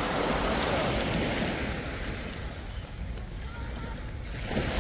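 Small waves washing up a sandy beach, with wind buffeting the microphone; the wash swells again near the end.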